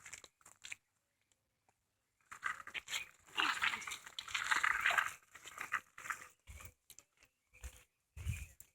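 A dog panting and snuffling, in short noisy spells, with a few light clicks and rustles.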